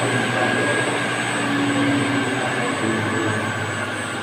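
Steady whirring machine noise of a building's water-pump room, with a low hum and a thin high whine. It drops off sharply at the very end.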